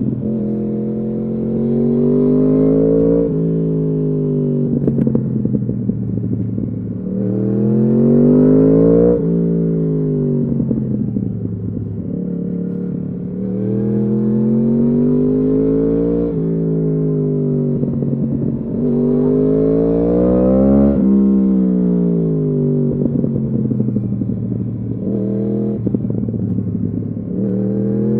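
2015 Yamaha R1's crossplane inline-four through a full Akrapovič exhaust, heard riding: the engine note climbs under acceleration and drops back as the throttle closes, about five times over.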